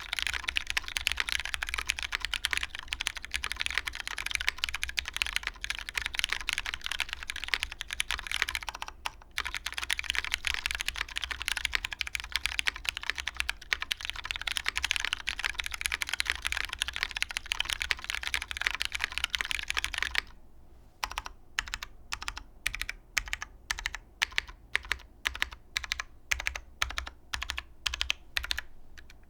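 Typing on a custom mechanical keyboard with lubed Cherry MX Brown tactile switches, a polycarbonate plate, O-ring mounting and GMK keycaps. Fast, dense typing with a short pause about nine seconds in, then from about twenty seconds in, slower single key presses at about two a second.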